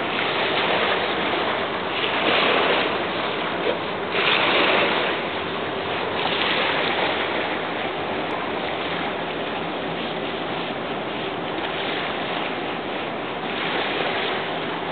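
Small river waves washing onto a sandy shore, a continuous rushing wash that swells a few times in the first seven seconds and then runs steadier.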